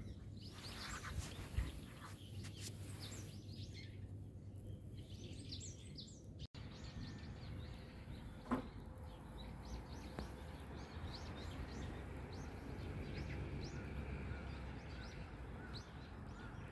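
Small birds chirping faintly and repeatedly over steady outdoor background noise, with one short rising call about eight and a half seconds in.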